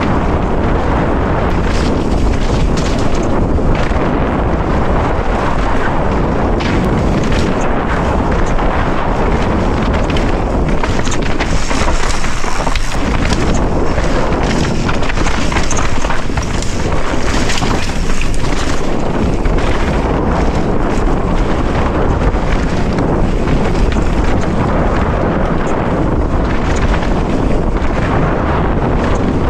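Wind rushing over the microphone of a mountain bike descending a loose, rocky dirt trail, with the tyres crunching on gravel and the bike knocking and rattling over stones throughout.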